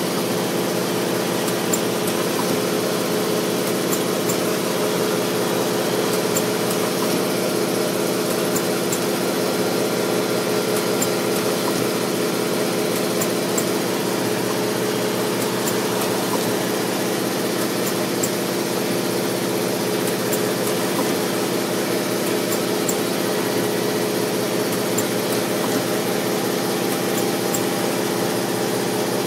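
Pad printing machine running with a steady mechanical hum, with scattered faint clicks from the plastic binding parts being handled in its fixture.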